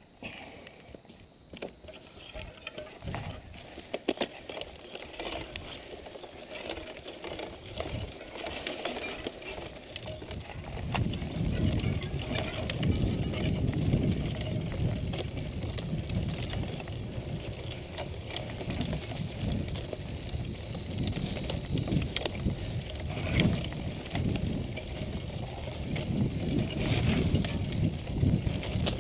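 Mountain bike ridden along a sandy dirt singletrack: tyre and bike noise over the rough ground, with a few sharp clicks early on, growing louder and rougher from about ten seconds in.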